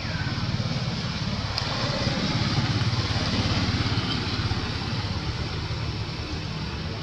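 A motor engine running steadily at idle: a low, even rumble.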